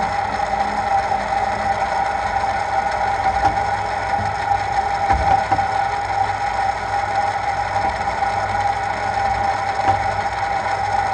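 Milling machine running with a steady gear whine, its end mill cutting along the edge of a metal plate while the rotary table is cranked by hand to contour a radius.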